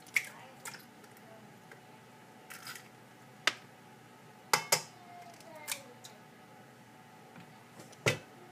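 Scattered sharp taps and clicks, about seven in all, from eggs being handled and tapped against a stainless steel stand-mixer bowl. The loudest knock comes near the end.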